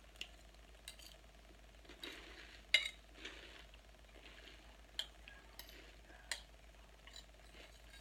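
Eating a crunchy salad: irregular clicks and scrapes of a fork against the bowl, mixed with short bits of crunching. The loudest click comes a little under three seconds in.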